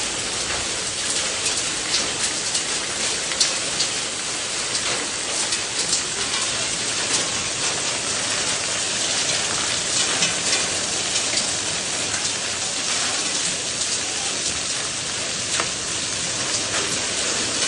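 Heavy rain pelting down onto roof tiles and concrete paving: a dense, steady hiss dotted with many sharp ticks of individual drops striking.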